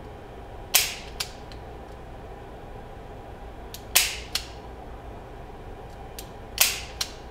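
Old Smith & Wesson revolver dry-fired on snap caps: three sharp snaps of the hammer falling, about three seconds apart. Each snap has a lighter click just before it and another about half a second after, as the trigger is pulled through and released.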